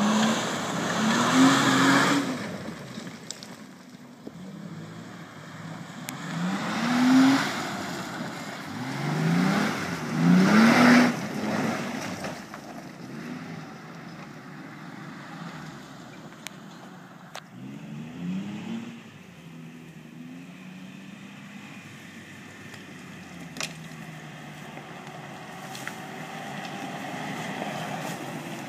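Ford Explorer's engine revving hard in repeated bursts over the first dozen seconds, each rise in pitch joined by a rush of tyres spinning in mud. It then runs more gently at lower revs, with a few smaller revs about two-thirds of the way in.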